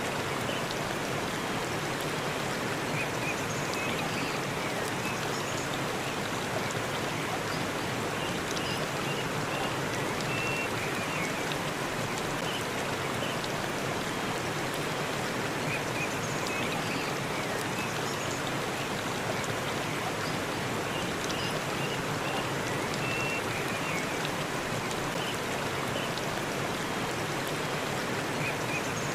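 Forest waterfall: a steady, unbroken rush of falling water, with faint short high chirps scattered through it.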